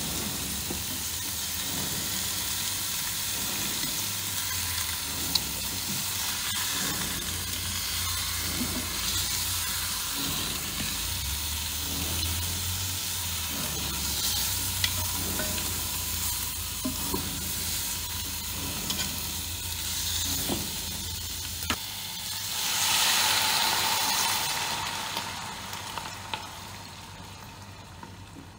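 Pork trotters searing in a Ninja Foodi multicooker pot, sizzling steadily while metal tongs turn them, with scattered sharp clicks of the tongs against the pot. About three-quarters of the way through the sizzling surges louder, then dies down as Shaoxing wine is poured in.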